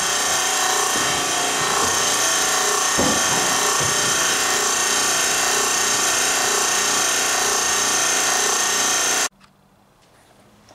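Loud, steady running of a machine in the shop, an even hum with a hiss over it, which cuts off suddenly near the end, leaving a quiet room.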